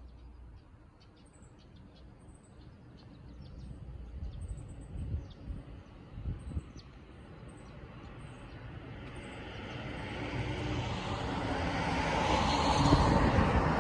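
A vehicle approaching along the road, its engine and tyre noise building steadily through the second half and near its loudest at the end. Faint, short, high bird chirps come and go in the quieter first half.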